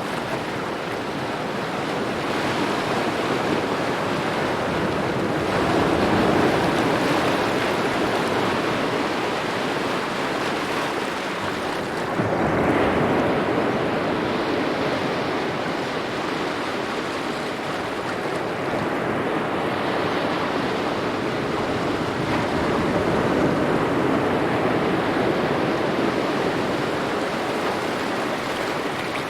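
Small waves lapping on a shore, a steady wash of water that swells and eases every several seconds, one stronger surge arriving suddenly about twelve seconds in.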